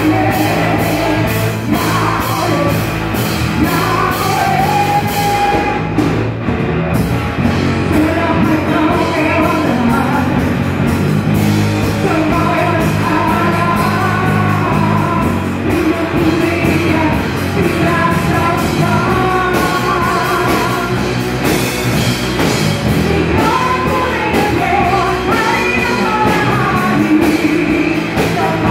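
Live band playing an upbeat song with a woman singing lead into a microphone, backed by electric guitar, bass and drums keeping a steady beat.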